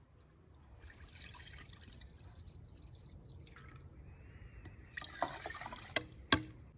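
Water splashing and dripping, with two sharp knocks near the end, the second the loudest.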